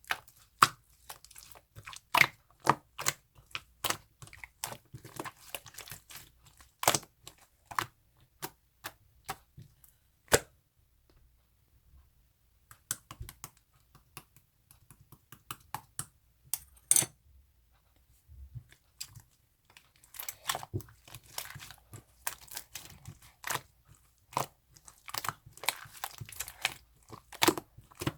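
Red marbled slime being worked by hand, giving irregular sticky pops, clicks and crackles as it is pressed, stretched and folded. The sounds pause briefly about eleven seconds in, then come thicker and faster near the end.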